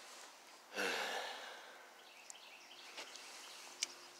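A person's breathy sigh about a second in, falling in pitch and fading out, over faint outdoor background with a few small ticks.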